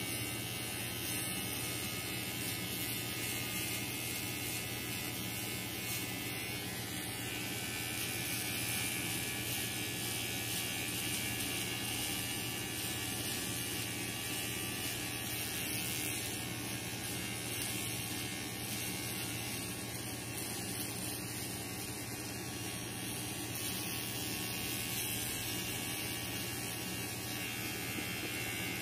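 Battery-powered pen-type electric facial hair trimmer buzzing steadily as it is moved in small circles over the eyebrow and upper lip.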